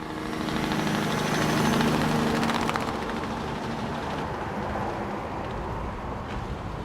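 An engine running steadily, growing louder over the first two seconds and then easing off slightly.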